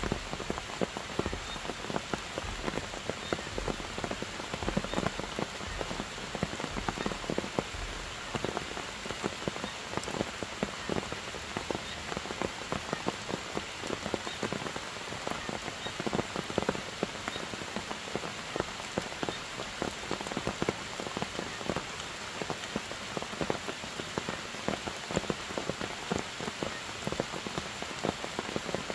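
Steady rain falling, with a dense stream of close individual drop hits throughout.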